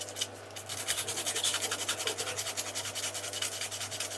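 Rapid back-and-forth scratchy scrubbing, about ten strokes a second, over a low steady hum.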